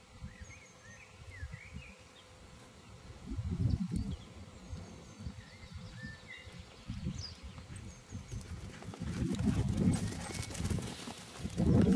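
Paws of two young dogs, one a rough collie, running and playing on grass: irregular dull footfalls on the turf, loudest near the end as a dog runs close by. Small birds chirp faintly above.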